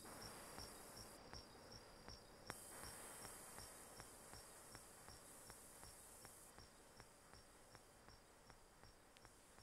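Sequential Prophet-6 synthesizer playing a quiet ambient noise patch: a high, cricket-like tone pulsing about three times a second over a hiss of filtered noise that shifts in steps every second or so.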